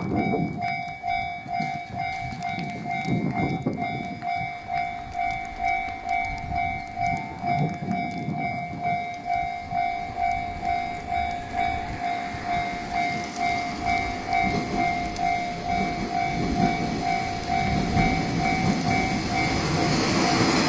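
Level-crossing warning bell ringing in an even, repeating rhythm. Near the end the rumble of an approaching Type 1200 diesel railcar grows louder under it.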